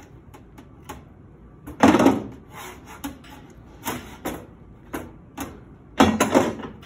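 Hard plastic soft-serve machine door parts knocking and clattering as they are handled and dropped into a plastic bucket: a loud clunk about two seconds in, a few lighter knocks, then another clattering burst about six seconds in.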